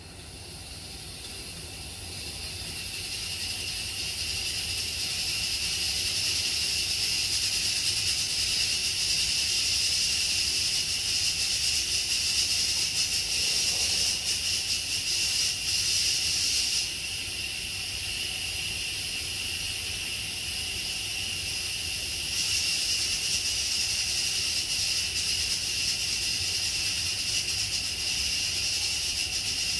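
Steam hissing steadily from a Noxxa electric pressure cooker's valve as it cooks rice, building over the first few seconds, easing a little about halfway through and rising again a few seconds later.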